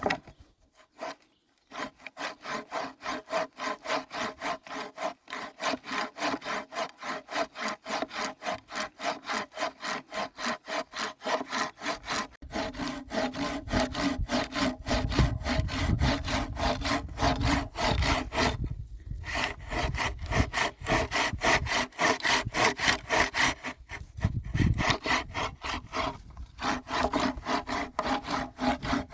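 Hand saw cutting through wood in steady back-and-forth strokes, about two to three a second, with a few short pauses between runs of strokes.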